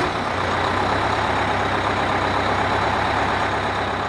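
Diesel engine of a Blue Bird All American bus, an 8.3 Cummins, running steadily: a constant low drone under an even hiss.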